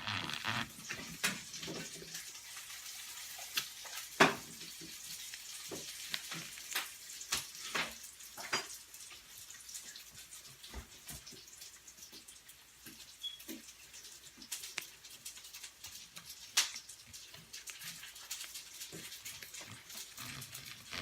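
Kitchen work: scattered clinks and knocks of dishes and utensils over a steady hiss.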